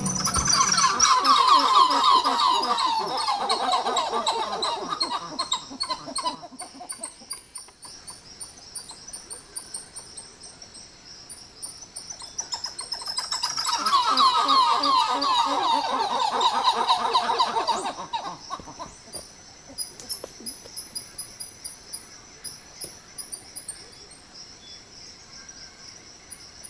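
Dusky titi monkeys calling: two loud bouts of fast repeated notes, each about five seconds long and falling gradually in pitch, with a pause between. A steady high insect shrill and faint high chirps carry on throughout.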